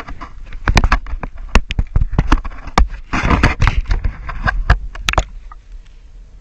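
Handling noise on a handheld camera: a rapid series of sharp knocks and bumps with a scraping, rubbing stretch in the middle, from about a second in until near the end.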